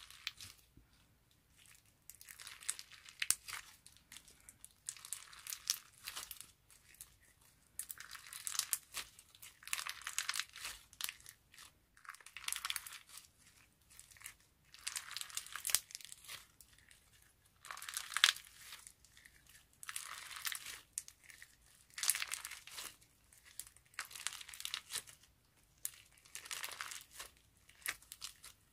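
Slime packed with purple flower-shaped sequins being squeezed and kneaded by hand, the sequins crinkling with each squeeze, about one squeeze every two seconds.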